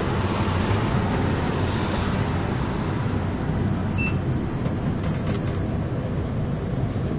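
Vienna city tram running along its rails, heard from inside the car: a steady rumble of wheels and motor, with one short high tone about four seconds in.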